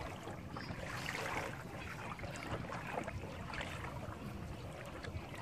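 Quiet water sounds around small wooden boats on a river: gentle lapping and light splashing, with a few faint knocks.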